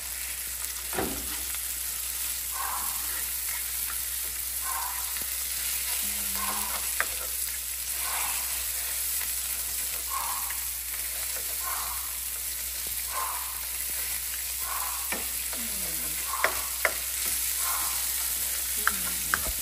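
Salmon sizzling in a nonstick frying pan over a gas burner while a spatula chops and scrapes it into pieces, a stroke every second or two. There are a few sharp taps of the spatula on the pan near the end.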